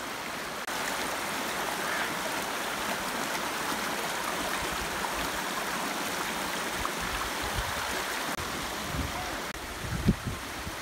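Fast-flowing stream rushing over rocks, a steady rush of water, with a few dull thumps near the end.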